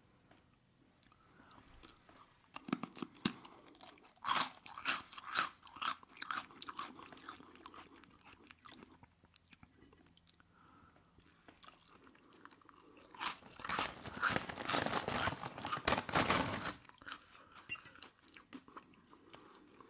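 Close-miked chewing of aubergines in sunflower oil: wet, clicky mouth sounds in two bouts, the second, about two-thirds of the way in, the densest and loudest.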